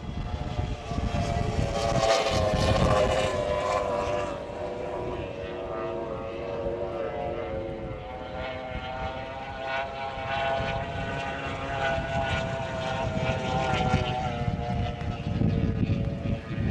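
Unlimited outboard hydroplane racing engine running at high revs, its pitch wavering slightly as the boat goes down the straight, loudest about two to four seconds in. Wind on the microphone adds a low rumble.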